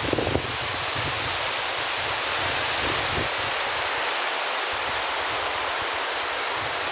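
Small waterfall rushing steadily into a pond, an even hiss of falling water.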